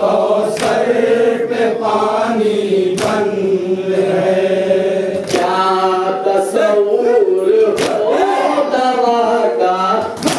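A group of men chanting a nauha, a Muharram lament, in unison in sustained melodic lines, with a few sharp knocks through it.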